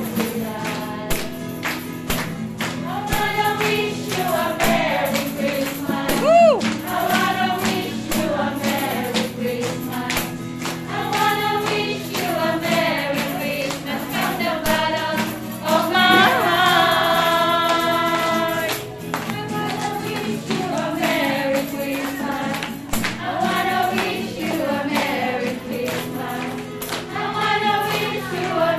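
A small group of women singing together to acoustic guitar, with a tambourine shaken and struck on the beat.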